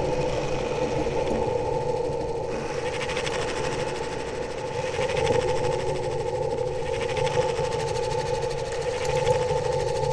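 Electronic noise drone from a Eurorack modular synthesizer layered with iPad found sound: two steady held tones over a rough, grainy, machine-like low rumble, with a hissy noise layer swelling and fading every couple of seconds.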